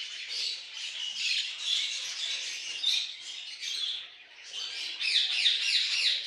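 A flock of budgerigars chattering, with many overlapping short chirps and squawks. A louder run of quick falling chirps comes near the end.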